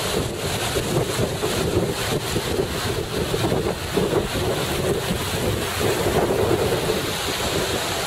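Wind buffeting the microphone over the steady wash of small surf waves.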